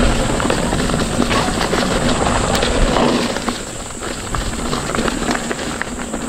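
Mountain bike ridden along a dirt forest trail: wind buffeting the microphone and tyres rumbling over the ground, with small clicks and rattles and a steady high hiss.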